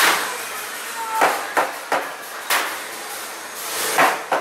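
A run of about seven sharp bangs at uneven intervals over four seconds, like hard knocks on a solid surface.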